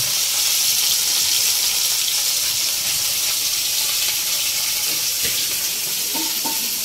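Fish pieces sizzling steadily as they shallow-fry in hot oil in a steel kadai.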